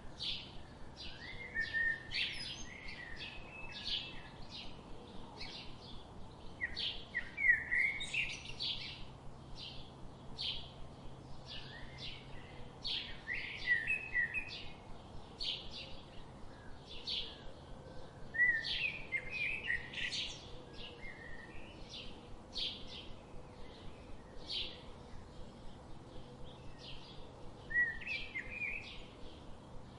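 Several small songbirds chirping steadily, about two or three short high chirps a second, broken by louder twittering phrases several times.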